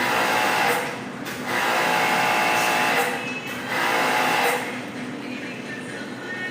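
A small electric power tool's motor whining in three bursts of about one to one and a half seconds, stopped and started again each time, then a fainter steady sound.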